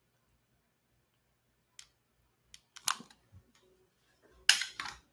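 Scattered sharp clicks from the trigger of a long-nosed butane utility lighter, the loudest two near the end.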